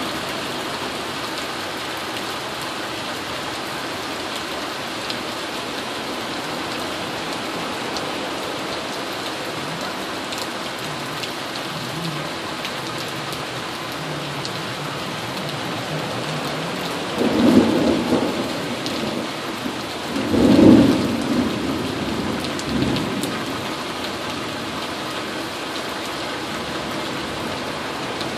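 Heavy tropical-storm rain falling steadily, with low rumbles of thunder swelling twice about two-thirds of the way through, the second the loudest, and a weaker one just after.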